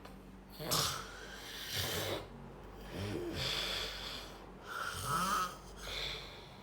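Snoring: about five noisy breaths in quick succession, some carrying a low note that rises and falls.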